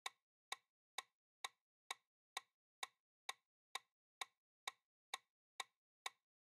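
Quiz countdown-timer tick sound effect: short, sharp, evenly spaced clicks at about two a second, marking the seconds left to answer.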